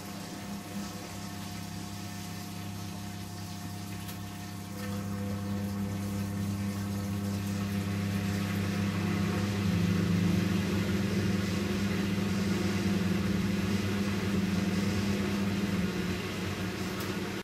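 A late-1970s Zanussi-built AEG Lavamat 800HC washing machine starting its main wash with drain, fill and tumble. There is a steady pump hum under water noise as the drum turns the load. It grows louder about five seconds in and again a few seconds later.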